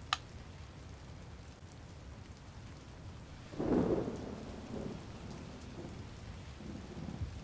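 Thunderstorm ambience: steady rain with a rumble of thunder swelling about three and a half seconds in. A single sharp click comes at the very start.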